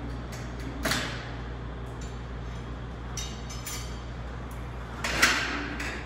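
Light-gauge steel studs and track knocked and slid into place overhead: two sharp metallic clanks with a short ring, about a second in and near the end, the second loudest, with a few light clicks between them.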